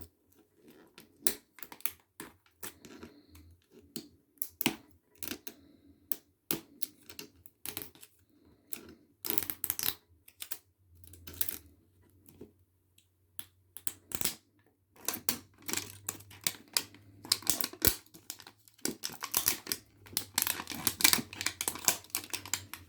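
Toy packaging being handled and opened by hand: a run of clicks, taps and rustles, thickest in the last several seconds.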